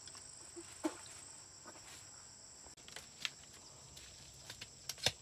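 Steady high-pitched insect chirring over a quiet background. A few faint, scattered clicks and knocks sound through it, the loudest just before the end.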